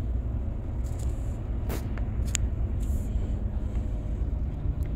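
Scania truck's diesel engine and tyres heard from inside the cab while driving at steady speed: an even low rumble with a faint steady hum. A few light clicks come through in the middle.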